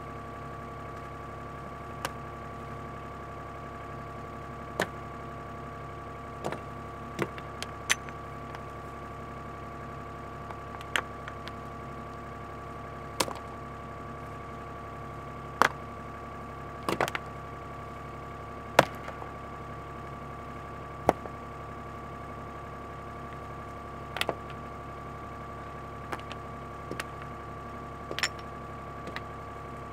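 Excavator engine running steadily, with sharp irregular knocks and clanks every second or two.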